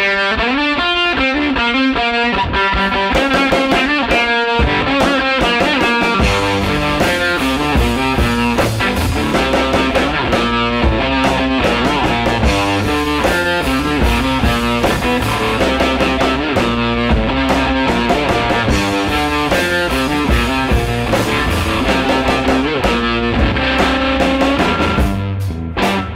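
Background music led by distorted electric guitar, with a fuller low end coming in about six seconds in.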